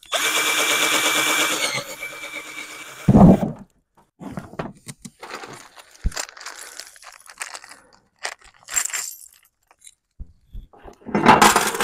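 Cordless drill running for about two seconds, boring a hole through the back panel of a motorcycle saddlebag, then winding down, followed by a single loud thump. After that come small clicks of bolts and hardware being handled, and a louder metallic rattle of loose nuts and bolts near the end.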